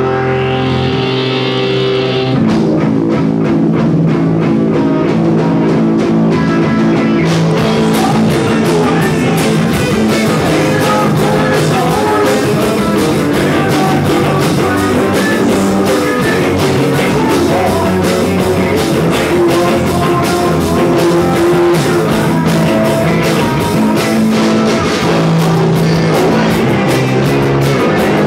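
Rock music with electric guitar and a drum kit: it opens on held guitar chords, and a steady drum beat comes in a few seconds in and runs on.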